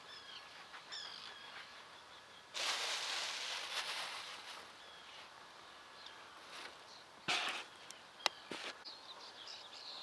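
Quiet outdoor ambience with small birds chirping in short high calls. About two and a half seconds in comes a two-second rush of noise, the loudest sound here. A brief rustle and a sharp click follow near the end.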